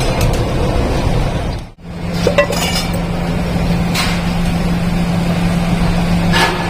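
Workshop machinery running with a steady noise and, after a brief break near two seconds in, a steady low hum; metal clinks sharply a few times, the clearest about four seconds in and near the end.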